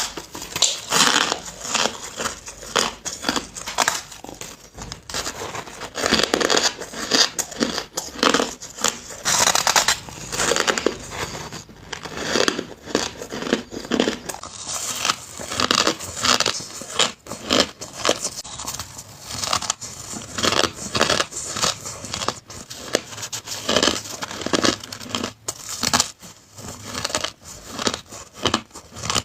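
Hard crushed ice being bitten and chewed in big mouthfuls: a continuous run of loud, crisp crunches.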